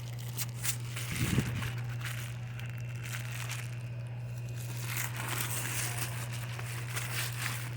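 Wrapping crinkling and rustling as a gift is unwrapped by hand, in irregular crackles, over a steady low hum.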